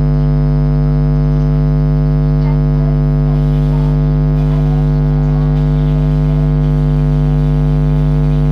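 Loud, steady electrical buzz made of many evenly spaced tones, a mains-type hum on the recorded audio. Faint traces of a voice lie underneath it.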